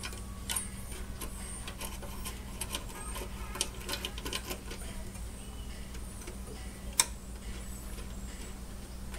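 Scattered light clicks and taps of small metal parts and hand tools being handled at a workbench, with one sharp click about seven seconds in, over a steady low hum.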